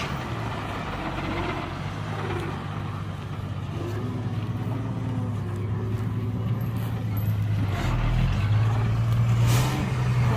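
Diesel engine of heavy earthmoving machinery running steadily, getting louder about eight seconds in, with a short hiss near the end.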